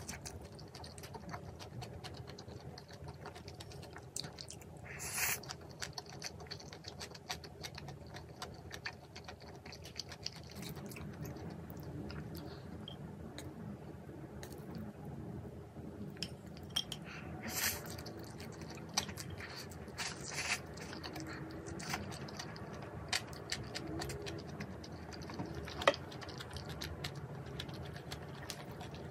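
A person eating: chewing with scattered light clicks and taps of utensils against dishes, with one sharper click toward the end.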